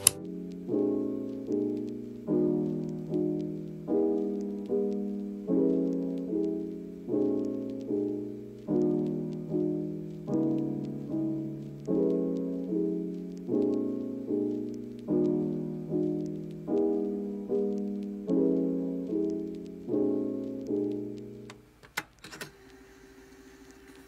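Background piano music with struck chords repeating on a steady beat, each fading after it is played. It stops near the end, leaving a couple of faint clicks.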